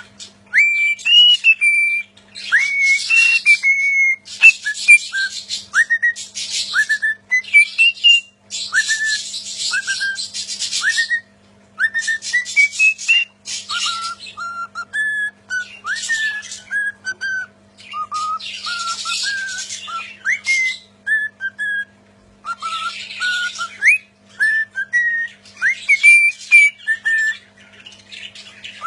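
A pet bird whistling a melody of short rising and falling notes, mixed with frequent harsh, raspy chatter.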